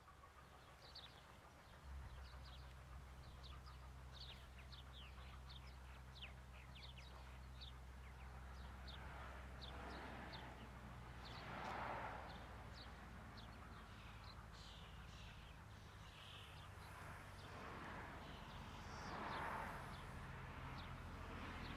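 Small birds chirping: many short, high, downward-slurred calls, several a second, over a faint steady low hum. Twice a soft rushing swell rises and fades, about twelve seconds in and again near the end.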